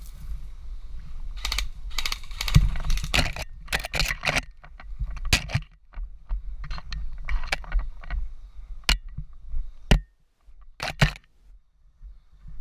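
Irregular crunching, clicking and rattling from a player moving fast through dry brush with gear jostling, thickest in the first half and thinning to a few separate knocks near the end.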